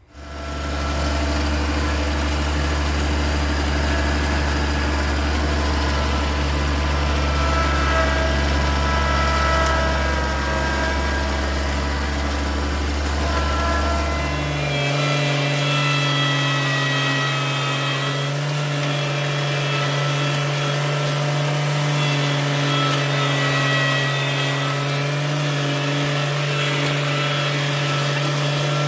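Compact tractor engine running steadily while it works a front-end loader spreading a compost pile. About halfway through, the engine steps up to a higher speed and holds there.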